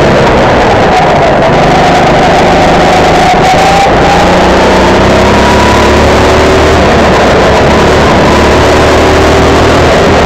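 Single-cylinder four-stroke Honda GX270 engine of a Sodi RT8 rental go-kart, heard loud on board at racing pace over heavy road noise. The engine note sinks over the first few seconds as the kart slows for a corner, climbs again around the middle under throttle, and drops once more near the end.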